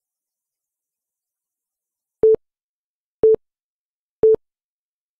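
Electronic countdown timer beeping the last seconds: three short, low beeps a second apart starting about two seconds in, then a longer, higher beep beginning right at the end that marks zero.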